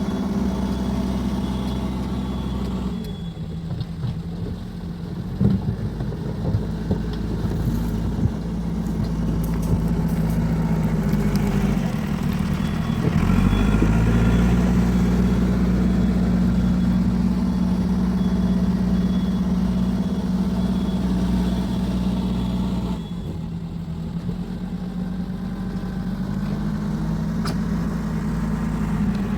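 Cat 416E backhoe loader's diesel engine running under working load. It drops to a lower, quieter speed about three seconds in, with a few knocks soon after, then climbs back up to a higher, louder steady pitch and holds there until it falls off again near the end.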